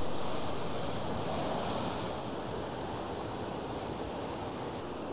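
Sea surf from waves breaking on a shingle and sand beach, a steady rushing wash with wind on the microphone, louder over the first couple of seconds and then even.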